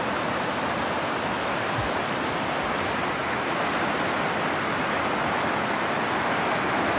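A river rushing over rocks in shallow rapids: a steady hiss of white water.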